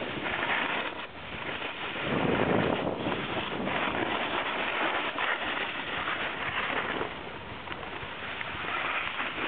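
Snowboard sliding and scraping over packed snow, with wind rushing over the microphone; the rush swells for a moment about two seconds in.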